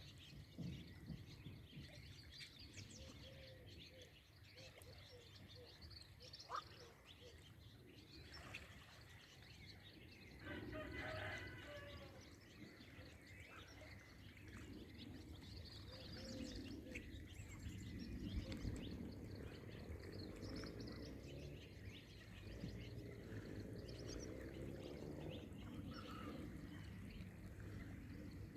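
A faint morning chorus of many birds chirping and calling, with a louder burst of calls about ten seconds in, over a low steady background rumble.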